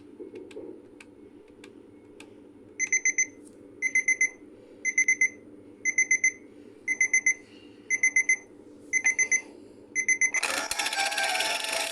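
Claw-machine toy alarm clock sounding its electronic alarm: bursts of four quick high beeps repeating about once a second, after a few faint clicks. Near the end, loud music starts.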